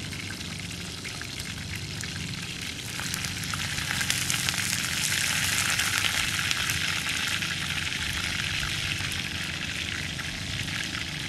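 Steady crackling hiss that swells louder for several seconds in the middle, over a low steady hum.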